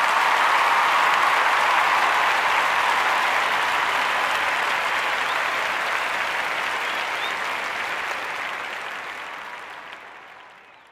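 Audience applauding, fading out over the last few seconds.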